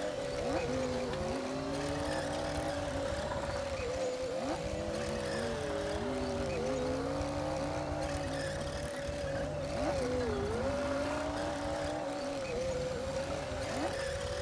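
Komatsu D60P crawler bulldozer's diesel engine running under work, its pitch sagging and recovering every couple of seconds as the load comes and goes.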